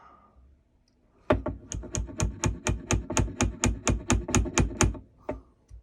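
Mallet tapping a carving chisel into a wooden rifle stock. It makes a quick, even run of sharp taps, about five or six a second for several seconds, then two more single taps near the end.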